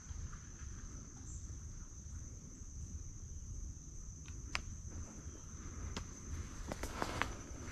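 Steady high-pitched insect trill from the woods. A sharp snap about halfway through and a few crunching footsteps in dry leaves near the end.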